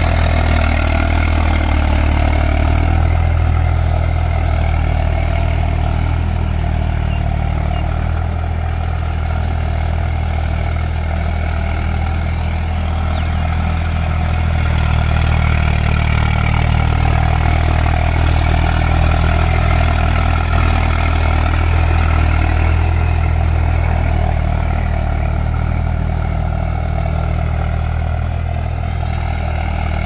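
Eicher tractor's diesel engine running steadily under load while ploughing a muddy, flooded field.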